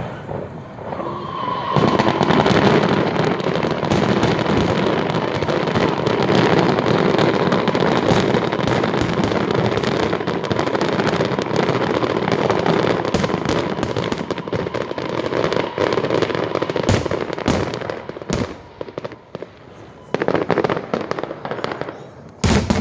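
Fireworks display: a dense, continuous barrage of crackling bursts and bangs that thins out near the end into scattered separate bangs, with one loud bang just before it ends.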